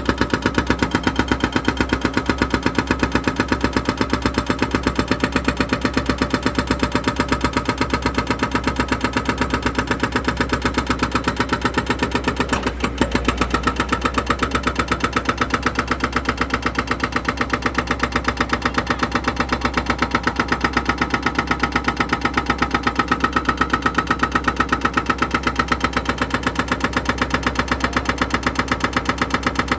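An engine running steadily at a constant speed with a fast, even beat.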